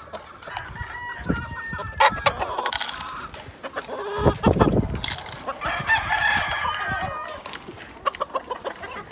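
Gamecock roosters crowing and clucking: two long crows, the first about a second in and the second about five and a half seconds in, with a few sharp knocks.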